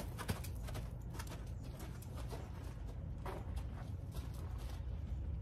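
Horse's hooves thudding and scuffing in loose sand as it walks in a circle on a lead rope: scattered soft strikes over a steady low rumble.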